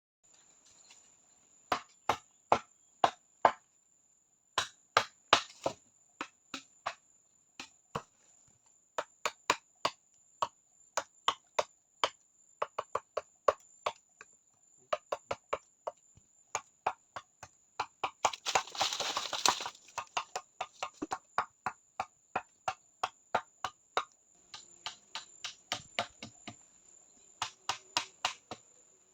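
Repeated sharp knocks of a tool striking wood, in runs of several blows at about two to three a second, with a short scraping rustle a little past the middle. A steady high-pitched whine sounds under it all.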